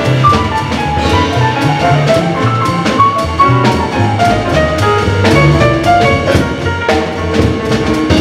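A jazz piano trio playing live: acoustic grand piano melody over an upright double bass line, with a drum kit keeping time on the cymbals.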